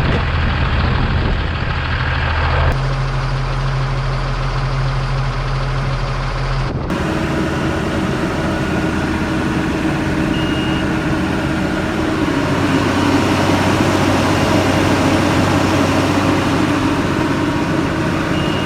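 Hagie self-propelled sprayer's diesel engine running steadily while antifreeze is run through the boom to winterize it. The engine note changes abruptly about three seconds in and again about seven seconds in.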